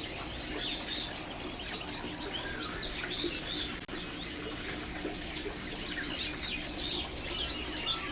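Many small cage birds chirping continually in short, high calls and trills, over a faint steady hum.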